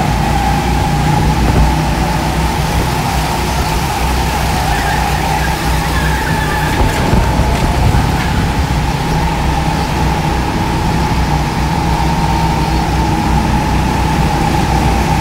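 Go-kart motor running steadily at speed, heard from on board: a constant low drone with a steady high whine over it.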